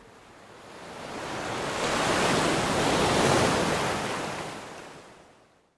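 Ocean wave breaking and rushing as white water: the noise swells over about two seconds, holds, then fades away near the end.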